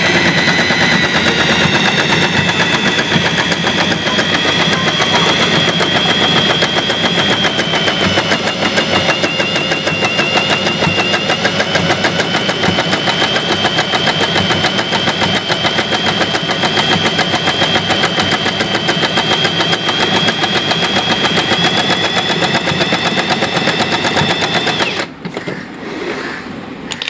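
Usha Janome Excella electric sewing machine running steadily, stitching a saree hem with its hemming stitch: a rapid, even needle clatter over a high motor whine. The whine dips slightly in pitch partway through as the speed eases. The machine stops abruptly near the end.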